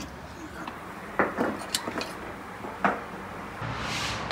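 Several sharp clinks and knocks of a long metal hook against ceramic bowls and the iron rack inside a tandir oven, the loudest a little over a second in and just before three seconds.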